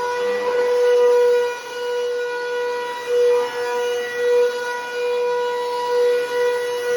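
Bissell Powerforce Helix Turbo 68C71 upright vacuum cleaner running with a loud, steady high whine, swelling in loudness every second or two. It is very loud.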